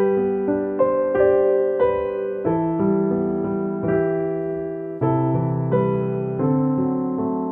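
Background piano music: a gentle electric-piano piece, notes struck about once a second and left to fade.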